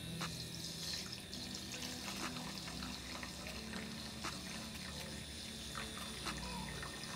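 Luxe Beauty electric makeup brush cleaner spinning a makeup brush in a glass bowl of warm water and cleaning solution, still below its top speed. Water swishes and splashes in small ticks over a low steady motor hum.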